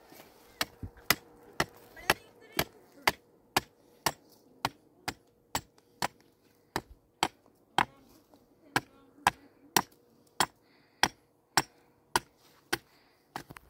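A hammer striking steadily, about two sharp blows a second, evenly spaced.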